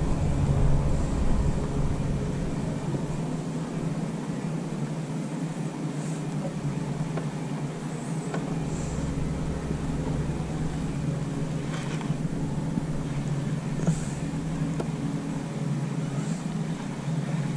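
Boat motor running steadily at trolling speed, a constant low hum, with a few faint clicks.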